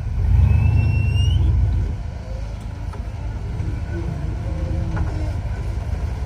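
Modified Jeep rock crawler's engine running at low speed while crawling through a rut, louder for about the first two seconds as it takes throttle, then easing back to a steadier, quieter running. A short rising whine is heard about half a second in.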